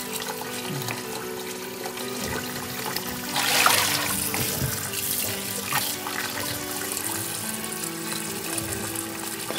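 Kitchen tap running into a metal sink, the water splashing louder for about a second some three and a half seconds in, with background music.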